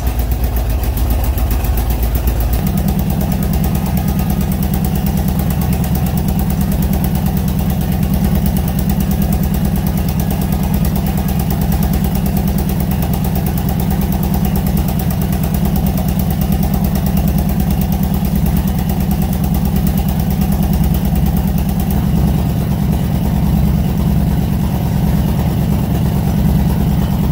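Honda Shadow VT1100's V-twin engine idling steadily through a freshly refitted, mocked-up custom exhaust just after starting. About two and a half seconds in, the engine note steps up, then holds even.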